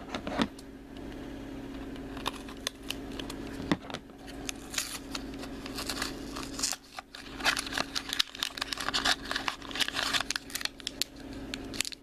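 Hands opening a cardboard blind box and pulling out the foil bag inside: scattered taps and scrapes of cardboard, then dense crinkling and rustling of foil through the second half. A faint steady hum runs underneath.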